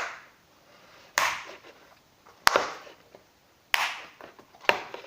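Slime and its plastic container being handled: about five sharp snaps and smacks, roughly a second apart, some trailing a short squishy hiss.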